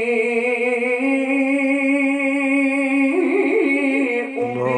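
A man's solo voice chanting an Islamic ibtihal. He holds one long, drawn-out note with a wavering vibrato, breaks into a quick run of ornaments about three seconds in, then pauses briefly near the end.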